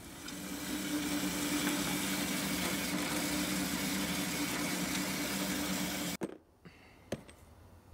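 Horizontal bandsaw running and cutting 4140 steel hex bar: a steady motor hum with a hiss over it. It cuts off abruptly about six seconds in, followed by a faint click or two.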